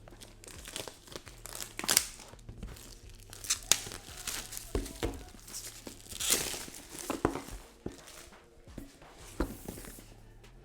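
Keyboard box packaging being opened by hand: irregular tearing and crinkling with a few sharper crackles, the loudest about 2 s in and again around 6 to 7 s.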